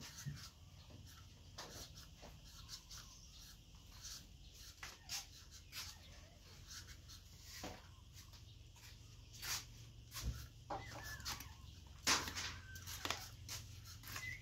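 Chickens clucking now and then among scattered sharp clicks and knocks, with the loudest knock near the end.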